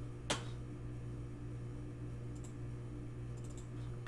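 Computer mouse and keyboard clicks: one sharp click about a third of a second in, then a few faint clicks, over a steady low hum.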